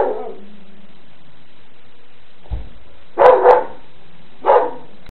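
A dog barking: two quick barks about three seconds in, then a third a second later. A brief low thump comes just before the first of them.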